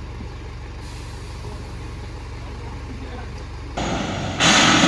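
Diesel truck engine running steadily at low revs. A little under four seconds in, a loud hiss of compressed air from the truck's air brakes cuts in and grows louder near the end.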